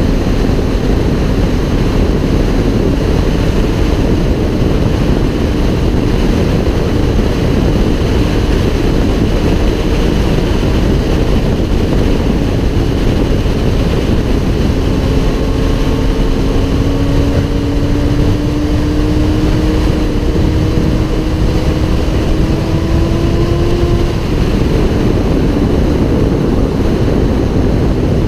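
Sport motorcycle riding at speed: heavy wind rush on the microphone, with the engine's note underneath. The engine pitch climbs slowly for about ten seconds past the middle, then falls away.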